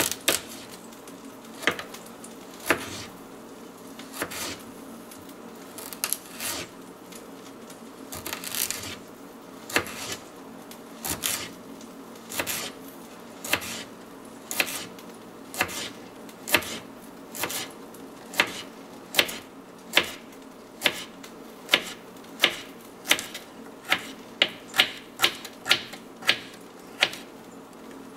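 Paring knife slicing a parsnip into thin rounds on a wooden cutting board: a sharp tap each time the blade comes down on the board, slow and uneven at first, then quicker, about two taps a second, in the second half.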